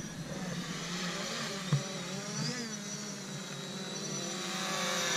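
JJRC X11 Scouter quadcopter drone's propellers whirring in flight, the pitch wavering up and down with the throttle and growing louder as it flies back toward the pilot. A brief knock sounds about a second and a half in.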